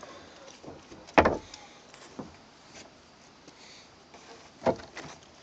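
Knocks and bumps on a plastic wheeled trash can as it is handled, the loudest about a second in and another near the end, with faint rustling between.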